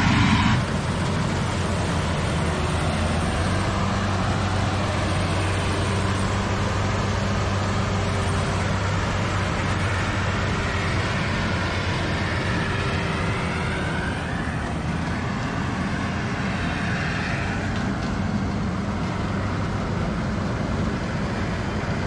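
Combine harvester's diesel engine and threshing machinery running steadily with a constant low hum while it harvests rice.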